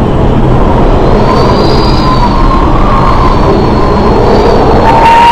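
Storm wind at sea roaring steadily and buffeting the microphone, with a faint whistle that wavers up and down over it.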